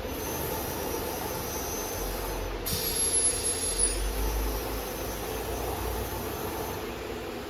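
Automatic CNC nesting machine running with a steady mechanical hum. About three seconds in comes a louder burst of about a second with a high whine that falls in pitch, over a low rumble lasting a few seconds.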